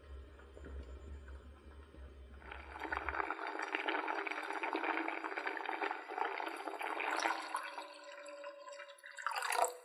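Azuki beans boiling in a stainless steel pot, at first faint over a low hum. The bubbling grows much louder about two and a half seconds in. Toward the end a stream of water is poured into the pot, topping up the boiling beans.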